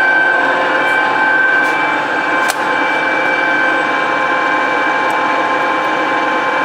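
Toolmex engine lathe running under power with its lead screw turning, the drive gearing giving a steady whine of several pitches. A single sharp click comes about two and a half seconds in.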